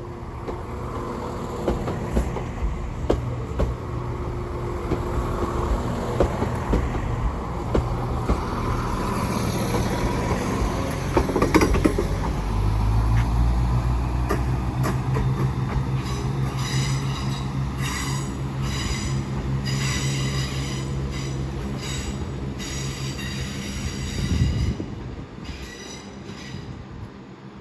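Class 171 Turbostar diesel multiple unit pulling out of the station, its engine note stepping up about twelve seconds in, with high wheel squeal in the second half.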